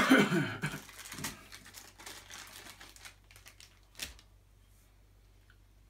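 Plastic packaging crinkling and clicking as the radio's power cord is handled and unwrapped. The loudest rustle comes at the start, with a single sharp click about four seconds in.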